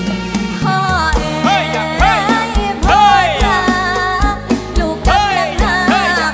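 A woman singing a Thai mor lam song, her voice sliding up and down in ornamented phrases, over a band with a steady drum beat.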